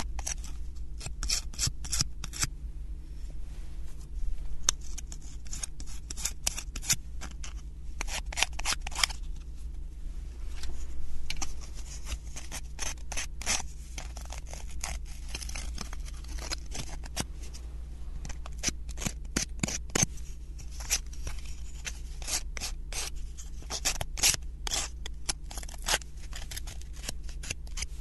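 Sandpaper rubbed back and forth along the edges of thin plywood 3D-puzzle pieces in quick scratchy strokes. The strokes come in bursts with short pauses between them. The sanding smooths off the sharp, rough edges left from punching the pieces out of the sheet.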